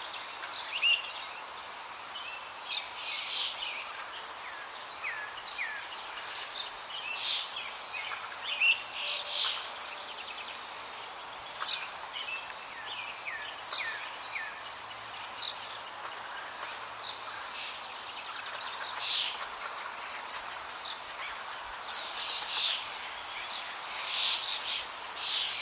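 Songbirds chirping: many short, scattered chirps and quick upward-sliding notes, over a steady background hiss of outdoor ambience.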